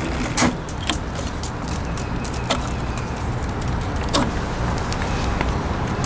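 Jetson Bolt Pro e-bike's electric hub motor running under power from the drill-battery pack, spinning the wheel with a steady hum, with a few sharp clicks along the way. It is a test that the new battery adapter wiring works.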